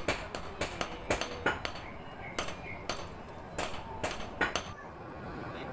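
Blacksmith's hand hammer striking metal in an uneven run of sharp, ringing clinks, often in quick pairs. The blows stop about three-quarters of the way through.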